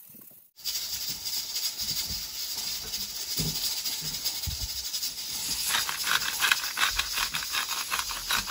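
Julienned potato strips sizzling in hot oil in a frying pan, starting abruptly about half a second in. From about six seconds in, the sizzle turns into denser crackling.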